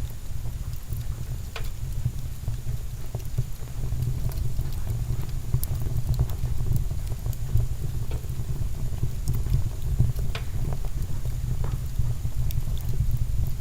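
Wood fire burning in a Vermont Castings wood stove: a steady low rumble with scattered crackles and pops from the logs.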